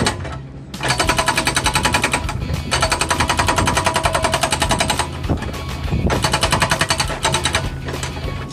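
Excavator-mounted hydraulic breaker hammering concrete rubble in three bursts of rapid, even blows. The machine's engine hums steadily underneath.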